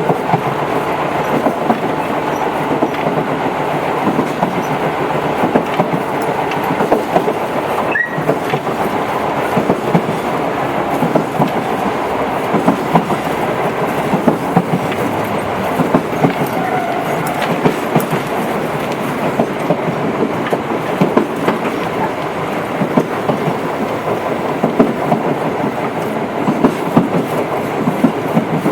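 Tobu 8000 series electric train running, with a steady rumble and wheels clattering over rail joints.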